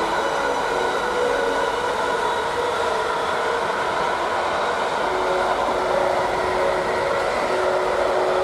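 Container freight train wagons rolling past, a steady noise of wheels on rail with a few faint held tones over it.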